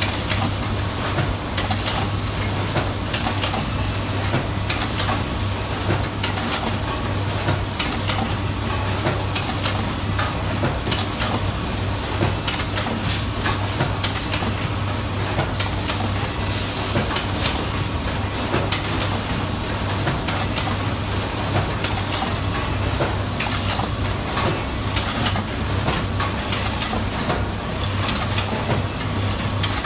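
Bobst SPO 1600 autoplaten die-cutter for corrugated board running in production: a steady low hum under a constant hiss, with frequent short mechanical clacks.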